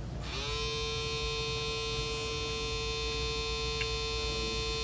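Small DC motor switched on, spinning up with a brief rising whine, then running at a steady buzzing hum.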